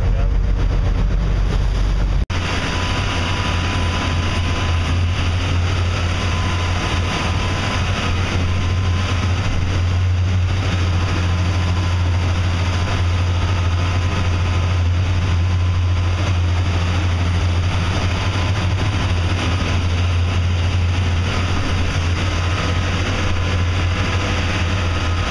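Sportfishing boat's engines running at cruising speed under way, a steady low drone over the rush of water and wake.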